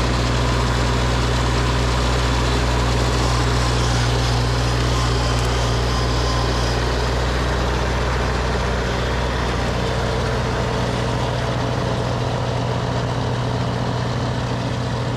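Tractor engine running steadily while driving a snowblower, a constant low hum that eases slightly about nine seconds in.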